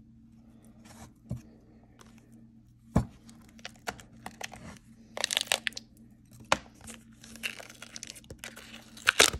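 Paper-and-cardboard cover of an Anastasia Beverly Hills eyeshadow palette being sliced and peeled away from its plastic tray, its glue softened by heating: rustling tearing with a few sharp snaps, the loudest just before the end.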